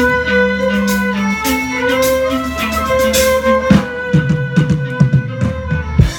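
A violin ensemble playing live, with several violins holding layered notes together. About two-thirds of the way through, drums come in with sharp strikes under the strings.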